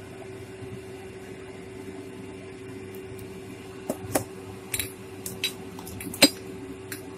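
A steady low hum, with a few short knocks and clicks of kitchen handling in the second half, two of them louder.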